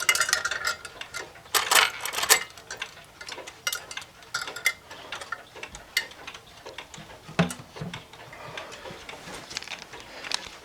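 Irregular metallic clicks and clinks as a spring-driven wall clock's parts are handled. They are densest and loudest in the first couple of seconds and grow sparser and fainter after.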